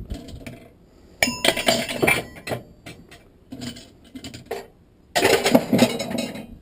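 Metal transmission internals clattering and clinking as they are pulled out of the case once a lock ring is removed. There are two loud bursts, one about a second in and one about five seconds in, with smaller clinks between them.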